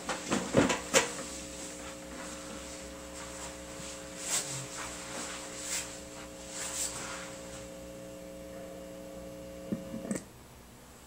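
Electrical mains hum from a cheap microphone running through an Epiphone Studio 15R guitar amplifier. It is a steady buzz that cuts off suddenly about ten seconds in. A few knocks and rustles of handling come in the first second.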